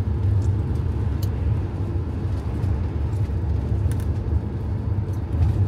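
Steady low rumble of a moving vehicle, engine and road noise, with a few faint ticks.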